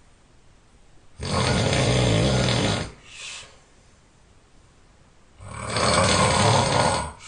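A person snoring loudly: two long snores, each just under two seconds and about four seconds apart. The first is followed by a short, quieter breath.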